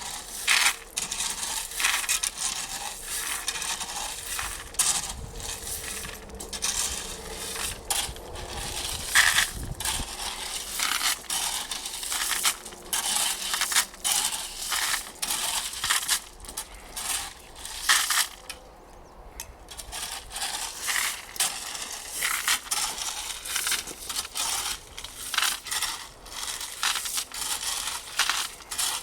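Irregular crunching and scraping from rigid foam insulation boards being handled, pushed into place and stepped on, with many short crackles.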